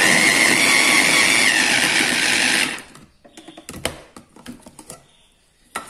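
Electric mini food chopper running, chopping tomato and green pepper pieces. Its motor whine drops slightly in pitch just before it cuts off suddenly under three seconds in. A few clicks and knocks from handling the plastic chopper follow.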